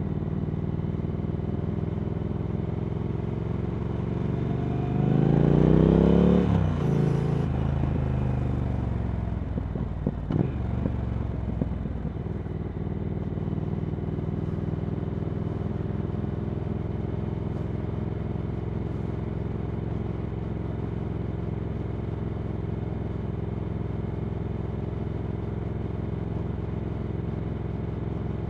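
Triumph Speed Twin 1200's 1200 cc parallel-twin engine running through Vance & Hines slip-on exhausts. About five seconds in it revs up with rising pitch, gets louder, then drops back. A couple of sharp clicks follow a few seconds later, and it runs on steadily at a lower pitch.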